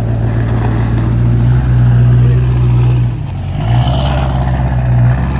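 2017 GMC Sierra 2500 Denali's L5P Duramax 6.6-litre turbo-diesel V8 running loud as the truck pulls away. The engine note climbs, dips about three seconds in and comes back up, a nasty-sounding diesel heard from outside the truck.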